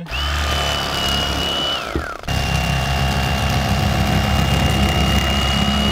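Bubba corded electric fillet knife running with a steady high whine over a low motor hum as it cuts into a channel catfish. About two seconds in the motor winds down and stops for a moment, then starts again and runs steadily.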